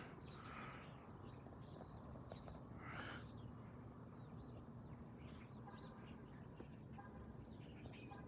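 Faint birdsong: scattered short chirps over a low steady rumble, with the loudest chirp about three seconds in.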